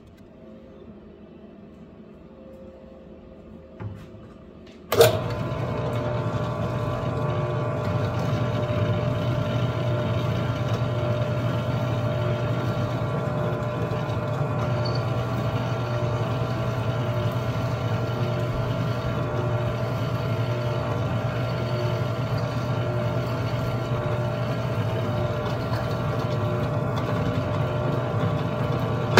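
Drill press starting abruptly about five seconds in and then running steadily while its twist bit bores into aluminum sheet, a constant motor hum with a steady whine over it. It cuts off at the very end.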